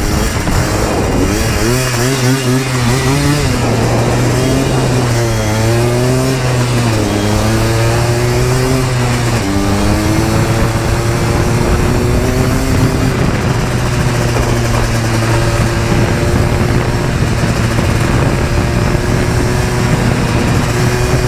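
Yamaha Blaster 200 ATV's two-stroke single-cylinder engine running under riding: the revs rise and fall repeatedly for about the first ten seconds, then settle to a steady cruising pitch.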